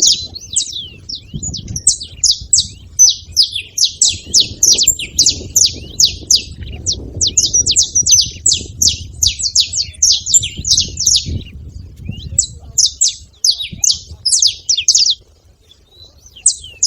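Several saffron finches chirping together in a dense, fast run of short, high, falling chirps. The chirping stops briefly near the end, then starts again.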